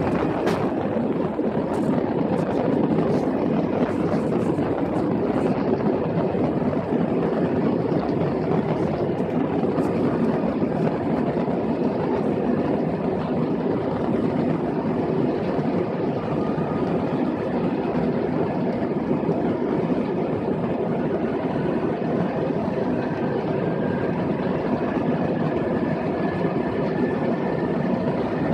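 Airliner jet engines running, a steady rush with a faint high whine, heard inside the passenger cabin as the plane rolls along the ground. A single sharp knock about half a second in.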